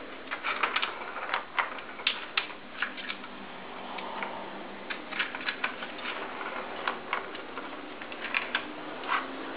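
Irregular light plastic clicks and clatters from a ball-in-track cat toy as a ferret noses and paws at the ball inside it.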